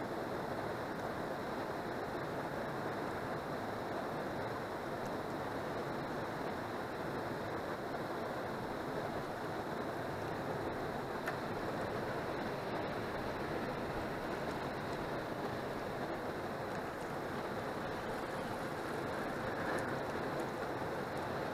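Steady rushing of river water, an even wash with no breaks or changes.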